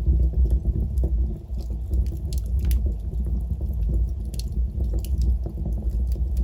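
Wood fire in a fireplace burning with a steady low rumble, dotted with frequent sharp crackles and pops.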